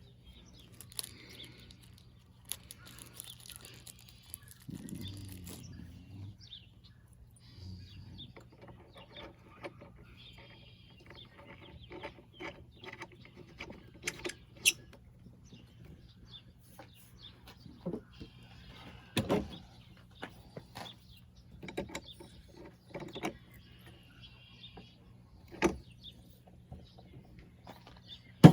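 Scattered clicks, taps and knocks of small chainsaw parts and hand tools being handled during reassembly, a few sharper knocks among them, over a low steady hum.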